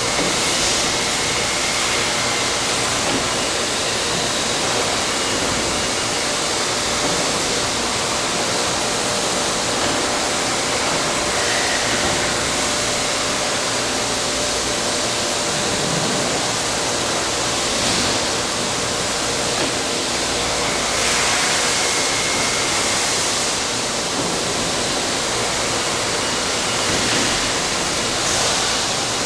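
CNC tube bending machine running, a steady noise like rushing air with a few faint tones, swelling briefly louder a few times.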